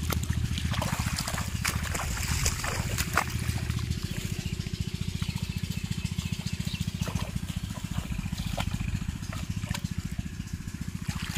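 A small engine running steadily at a fast, even beat, with water trickling and splashing over it.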